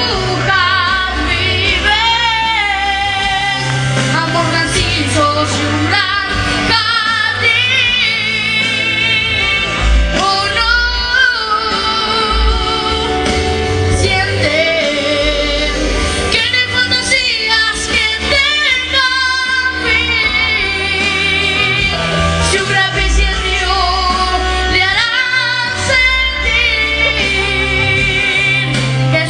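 A young singer singing into a microphone over accompanying music with a bass line, the held notes wavering with a wide vibrato.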